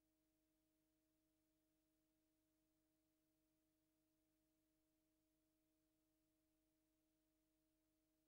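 Near silence: only a very faint steady hum of a few pure tones over low hiss, with no sound events.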